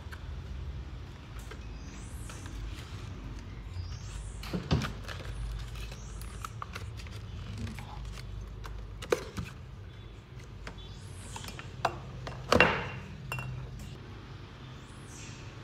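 A baby macaque handling small bottles, a cup and a cardboard box on a wooden dressing table, giving scattered clicks, clinks and knocks. The loudest knock comes about twelve and a half seconds in.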